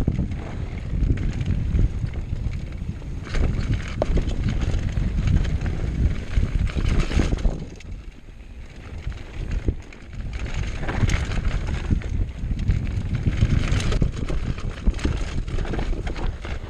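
Wind noise on the microphone of a mountain bike's onboard camera during a fast downhill run, mixed with tyres on rough trail and sharp knocks and rattles from the bike over bumps. It eases off briefly about eight seconds in.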